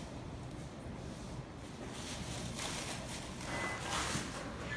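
Warehouse background noise: a steady low rumble with soft scuffs and rustles as someone walks, and a brief faint high beep about three and a half seconds in.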